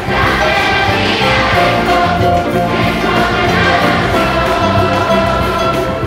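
Large children's choir singing in full voice with instrumental accompaniment, a bass line stepping from note to note underneath the held sung notes.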